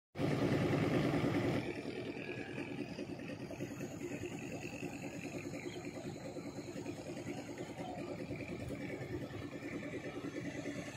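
Fast-flowing floodwater rushing through a flooded channel, a steady rushing noise that is a little louder for the first second and a half.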